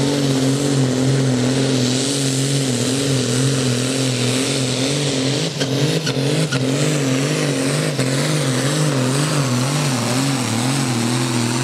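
Turbocharged six-cylinder diesel of a Case 2094 pulling tractor running flat out while dragging a weight-transfer sled: a loud, steady engine drone. About halfway through, its pitch starts to waver up and down about twice a second.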